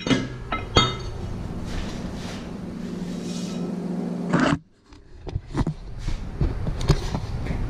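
Steady electric motor hum from the lathe, with metallic clinks as the slotted brake disc is handled at the chuck. The hum cuts off abruptly about four and a half seconds in, leaving scattered clicks and knocks of metal parts.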